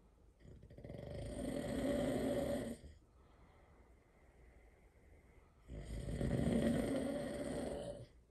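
A sleeping person snoring loudly: two long snores, each about two and a half seconds and growing louder, about five seconds apart.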